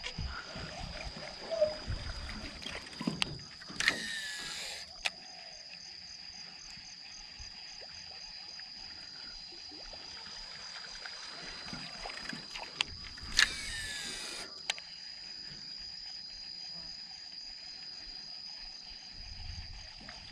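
Two casts with a fishing rod and reel: the reel's spool whirs for about a second each time, dropping slightly in pitch, about four seconds in and again a little past the middle, with sharp clicks around each cast. A steady high-pitched whine with a fast pulse runs underneath.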